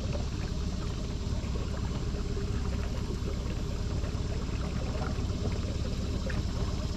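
Water splashing and trickling against a small boat, over a steady low rumble.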